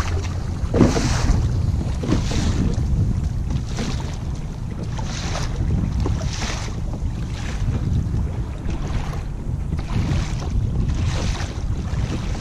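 Wind rumbling on the microphone over open water, with water swishing against a kayak's hull in a regular rhythm about once a second.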